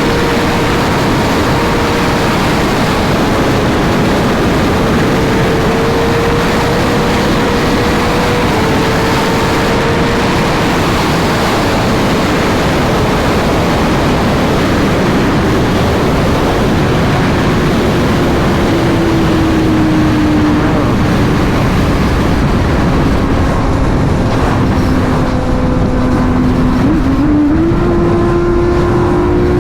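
Sport bike engine running at highway speed under heavy wind rush on the microphone. The engine note holds steady, sinks slowly as the bike eases off, then a couple of seconds before the end jumps up and climbs as the rider gets back on the throttle.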